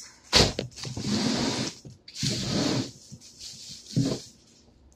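Plastic grocery packaging rustling and crinkling in two stretches as items are handled, with a sharp knock near the start and another about four seconds in.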